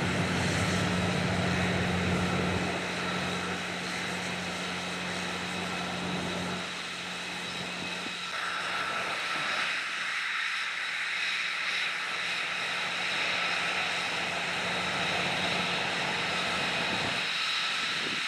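F-35A Lightning II jet engine running at taxi power, a steady high whine over a low rumble; the rumble drops away about seven seconds in, and from about eight seconds a broad hiss of water spray from the salute's water cannons joins the whine.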